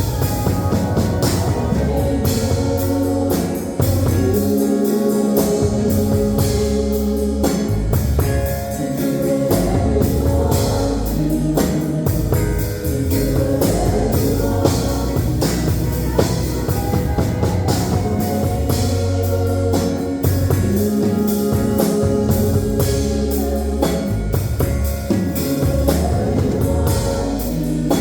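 Band music with drum kit and guitar, playing steadily without a break.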